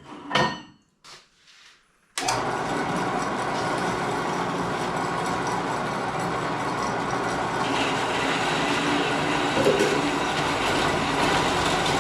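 A few light clicks and knocks as a steel rod is set in place, then about two seconds in a wet saw starts up and runs steadily through the steel rod, stopping right at the end.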